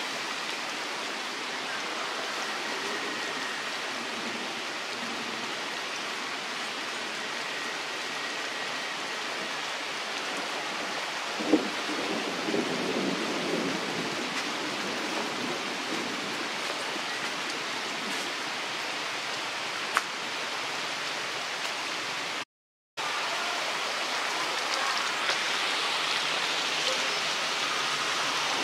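Steady hiss of outdoor background noise, with a sharp click partway through and a brief drop to silence near the end.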